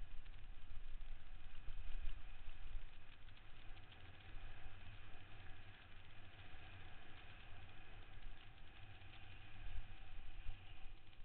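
Mountain bike descending a rough gravel trail at speed: continuous rattling and crunching of the bike over the loose surface, with wind rumbling heavily on the camera's microphone.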